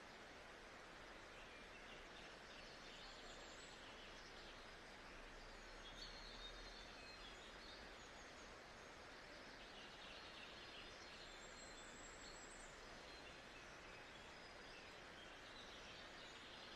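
Faint, steady white-noise nature ambience: an even hiss with soft bird calls at times, around four, six, eleven and sixteen seconds in.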